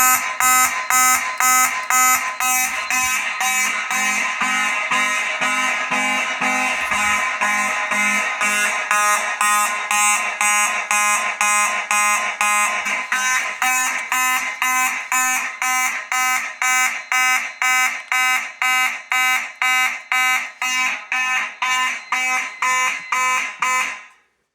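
Simplex mechanical fire alarm horns blaring in march-time pulses, about two blasts a second, set off by a smoke detector tripped in a system test. They cut off suddenly near the end when the alarm is silenced.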